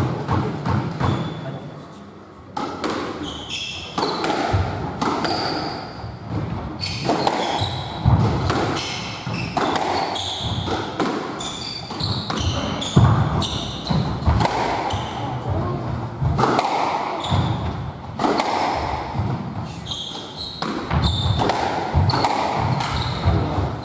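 Squash rally: the ball is struck by rackets and cracks off the court walls in a quick run of sharp impacts, echoing in the court, with short high squeaks of shoes on the wooden floor.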